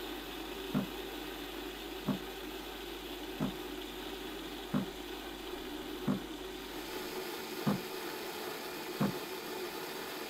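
Melisse Grand Crema automatic coffee machine frothing milk and delivering it into a cup: a steady mechanical hum and hiss with a short low pulse about every second and a third.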